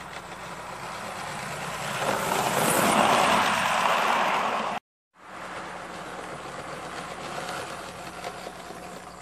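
Model train running along the track close by, its motor and wheels growing louder as it passes about three seconds in. The sound cuts off abruptly just before five seconds, then a quieter, steady running sound of another model locomotive on the track starts again.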